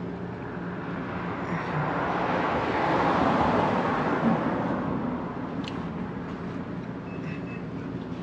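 A road vehicle driving past: its tyre and engine noise swells, peaks about three seconds in, and fades away a few seconds later.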